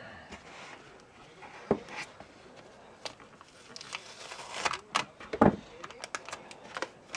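A folding knife slitting plastic shrink-wrap on a cardboard backing, and the wrap crinkling as it is peeled away by hand. There are scattered clicks and a few sharp knocks, the loudest about five and a half seconds in.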